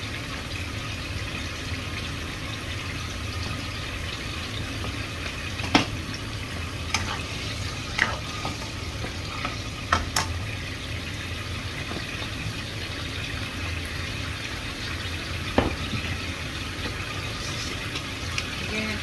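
Food frying and sizzling in a pan, with a steady low hum under it and a handful of sharp clinks, like a utensil knocking against the pan.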